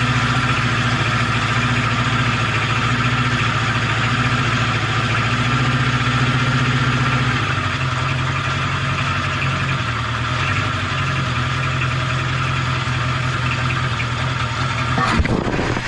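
Honda CB750K motorcycle's air-cooled inline-four engine running steadily. Its note shifts slightly about halfway through. A sharp click comes near the end, just before the sound changes abruptly.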